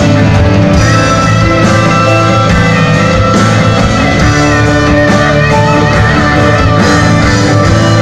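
Live rock band playing a loud instrumental passage: electric guitars, bass guitar, drums, keyboards and violin.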